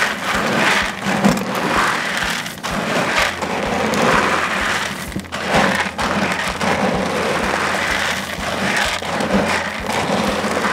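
Hardwood and charcoal smoker pellets being stirred by hand in a plastic bucket to mix the blend: a continuous rattle of many small pellets clattering against each other and the bucket wall.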